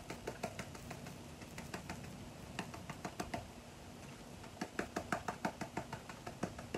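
Cloth bag of parting powder tapped and shaken by hand over a sand-casting mould, dusting the pattern: a run of quick soft taps, busier and louder over the second half.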